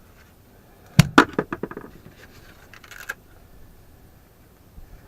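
Axe chopping at a van seat belt: a sharp strike about a second in, followed by a quick rattle of clicks as it settles, and a lighter knock around three seconds in.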